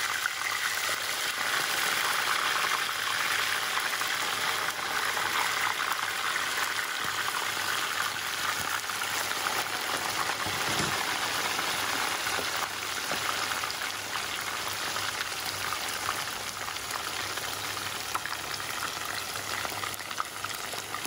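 Chicken thigh pieces deep-frying in hot oil in a pan: steady sizzling and bubbling, a little quieter in the second half.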